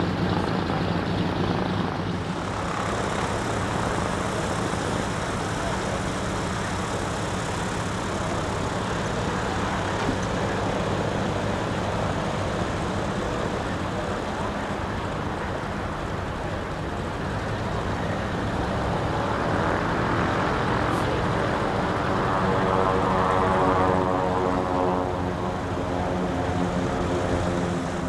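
Piston propeller aircraft engine noise on an airfield ramp, a steady drone, with an engine's pitch rising gradually over the last several seconds as it speeds up.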